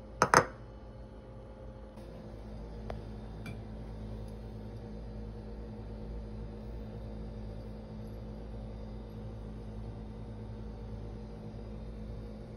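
Two quick sharp clinks of a small ceramic cat-food dish against a granite countertop, followed by a steady low appliance hum with a couple of faint clicks.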